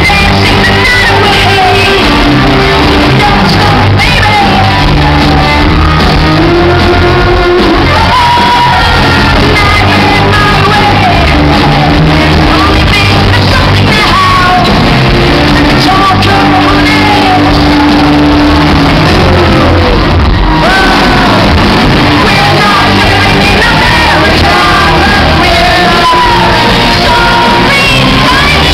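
A live rock band playing loud, with a woman singing into a microphone over electric guitar and drums.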